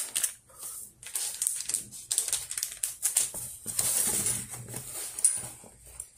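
Irregular crinkling of the clear plastic wrapper around a sealed face mask as it is handled and set down, with rustling of the fabric backpack.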